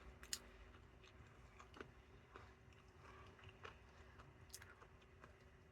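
Near silence with faint chewing: soft mouth sounds and a few scattered small clicks.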